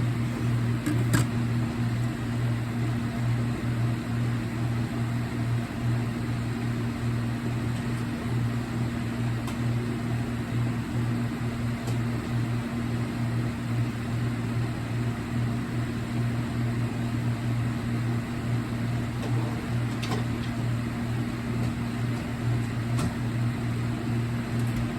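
Steady low electrical hum, with a few faint clicks now and then.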